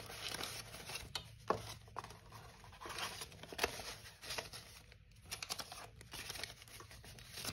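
Paper banknotes rustling and crinkling as they are counted by hand, with irregular soft flicks as the notes are fanned and moved.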